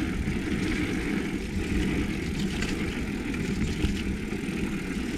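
Mountain bike riding a rooty dirt trail: a steady low rumble of wind and tyres on the action camera, with the bike's light rattles and clicks over the roots.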